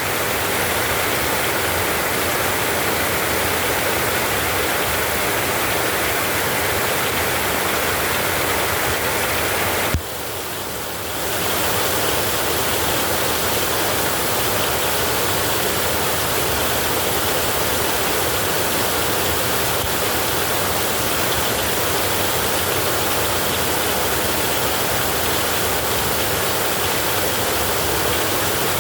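Heavy rain falling in a steady, even rush. About ten seconds in, a brief click and a second-long dip break it before it returns.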